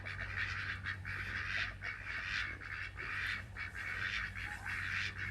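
A flock of farm poultry calling over one another in a continuous, dense din, with a steady low hum underneath.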